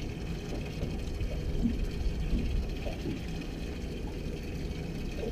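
Water sloshing and lapping around a small boat, over a steady low rumble.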